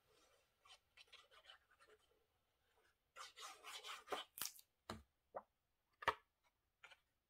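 Faint scratching and rubbing of a Tombow liquid glue applicator tip being drawn across paper, followed in the second half by several sharp clicks and taps.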